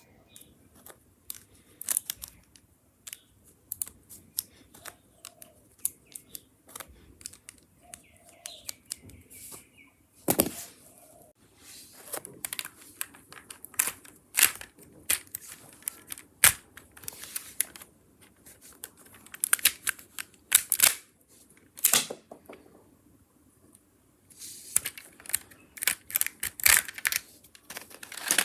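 Lego plastic pieces clicking and clattering as a small brick-shooting Lego pistol is loaded with bricks and worked by hand: many sharp, irregular clicks, with louder snaps now and then and dense clusters of them near the end.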